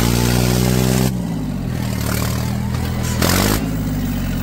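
Diesel tractor engine revving hard. The revs drop sharply about a second in and climb again around three seconds in, with a brief burst of noise.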